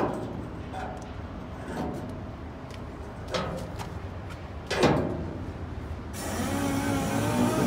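Steel latch bar working in its welded receiver on a dump truck's side-gate frame: a few light metal clicks and one louder clank near the middle. A steady hum with a wavering tone takes over for the last second or two.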